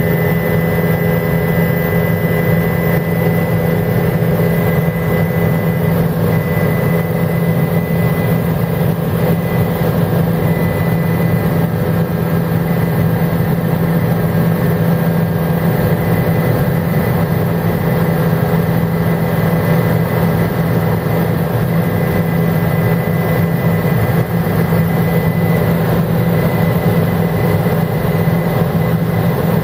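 Helicopter in flight: a steady, loud low drone from the rotor and engine with a thin constant high whine above it, unchanging throughout.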